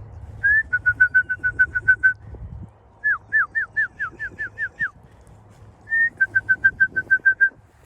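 Three quick phrases of clear, loud whistled notes, each a rapid run of about ten short whistles; the first and last are level notes after a brief rising note, the middle one downward-slurred notes.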